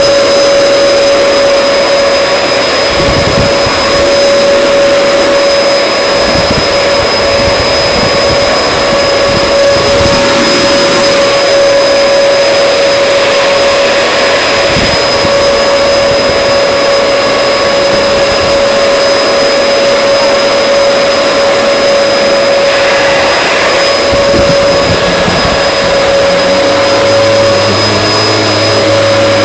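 Vacuum cleaner running steadily: a loud, even rush of air with a constant whine from its motor.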